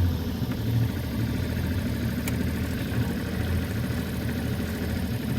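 Boat's outboard motor idling with a steady low hum while the boat creeps up on a fishing jug.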